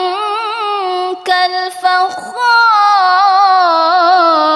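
A boy with an unbroken voice reciting the Qur'an in melodic tartil style, drawing out long held notes with quick wavering ornaments. There is a short pause for breath about two seconds in.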